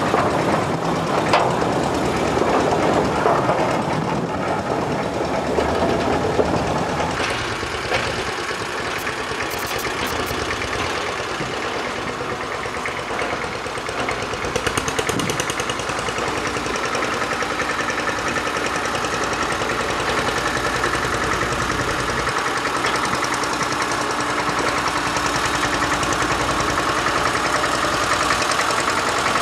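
Diema DL 8 narrow-gauge diesel locomotive running with a train of tipper wagons. It is first heard from aboard the wagons, with a few sharp knocks over the track. Later its engine sound builds steadily with a rising whine as the train draws closer.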